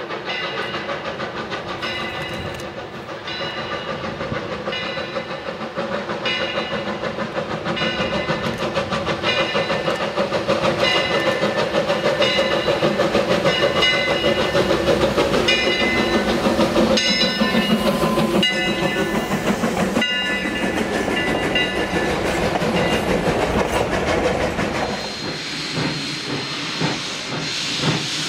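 Eureka and Palisade No. 4, an 1875 wood-burning 4-4-0 steam locomotive, working past with a steady rhythmic exhaust beat that grows louder as it nears and passes, then fades. Near the end this gives way to a steady hiss of steam from a second steam locomotive at rest.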